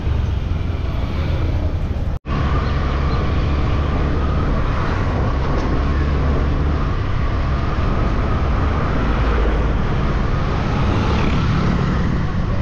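Steady low rumble of vehicle and road noise. It cuts out briefly to silence about two seconds in, then carries on as before.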